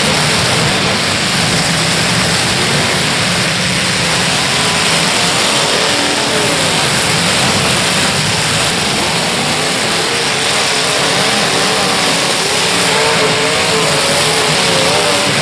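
Demolition derby car engines running and revving, their pitch wavering up and down over a loud, steady wash of noise.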